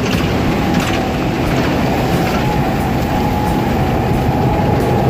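Tractor and combine harvester engines running steadily at close range, with a steady high whine setting in about a second in.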